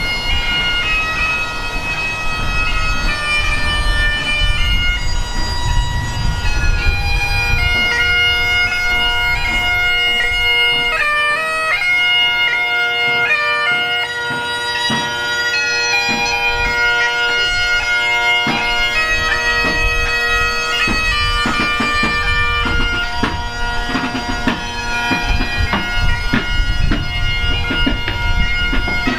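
Bagpipes playing a slow tune over a steady drone, the melody broken by quick grace-note flourishes.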